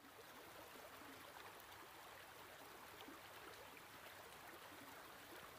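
Faint, steady rush of a rocky waterfall: white water cascading over boulders.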